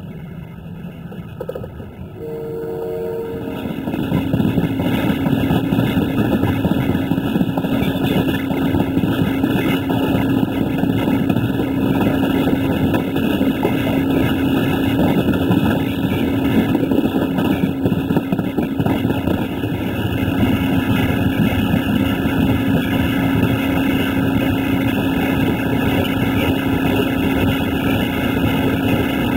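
Passenger train in motion: a brief horn-like tone near the start, then about four seconds in the loud, steady running noise of the moving train takes over, with a constant low hum under it.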